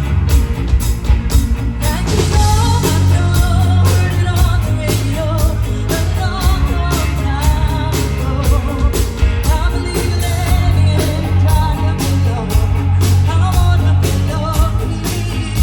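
Rock band playing a song with a sung lead vocal over loud bass and a steady drum beat.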